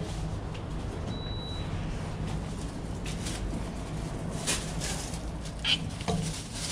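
Handling noise of a handheld camera: rustling and light bumps over a low steady rumble, with a brief faint high tone about a second in.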